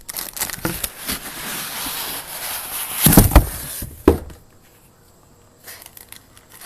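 Cardboard box being opened by hand: rustling and scraping of the flaps and packing, with a few sharp knocks around three and four seconds in, then only faint handling noise.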